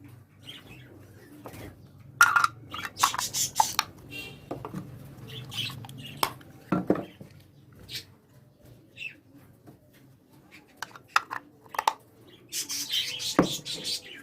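Small cage birds chirping and squawking, with wings fluttering, over the clatter of small feeder dishes and utensils being handled as vegetable salad is spooned into the feeders.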